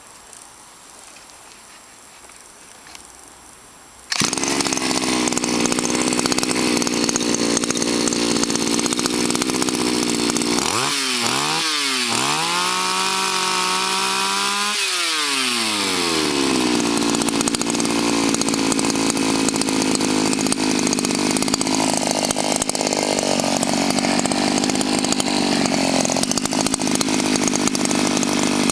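Shindaiwa SBA-P24's small two-stroke engine bursts into life about four seconds in and idles steadily. Around eleven seconds the pitch dips and rises twice, holds higher for about three seconds, then settles back to idle.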